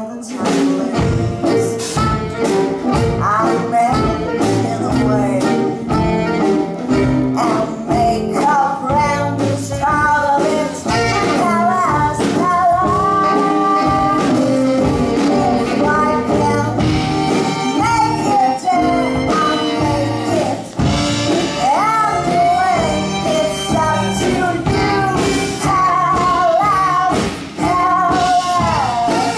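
A woman singing with live band accompaniment that includes a violin; the music keeps a steady beat.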